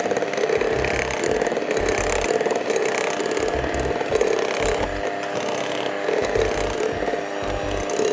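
Electric mixer running steadily, beating butter cake batter after the milk has gone in, with irregular low thuds underneath.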